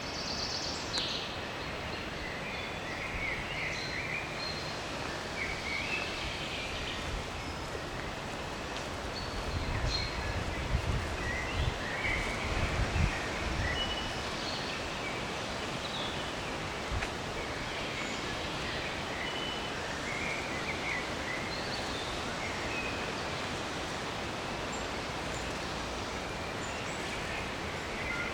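Forest ambience: many small birds chirping and calling, over a steady rustle of leaves in the wind. A few low rumbles come in near the middle.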